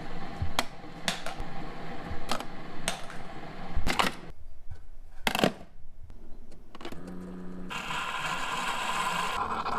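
Clamps and tools being handled on a workbench: a run of sharp clicks and knocks, then a steady rushing noise starting about three-quarters of the way in.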